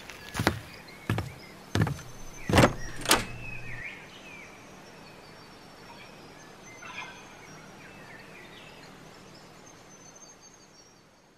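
Footsteps: five heavy steps about half a second apart over the first three seconds, then a faint steady outdoor background with a few faint chirps.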